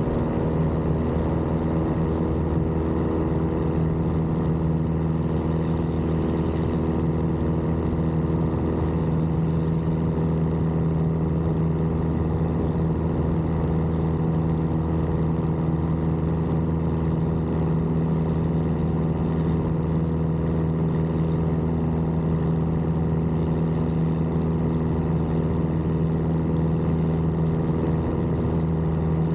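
Piper J3 Cub's piston engine and propeller running steadily at constant power, a continuous even drone with no change in pitch, heard from inside the cockpit.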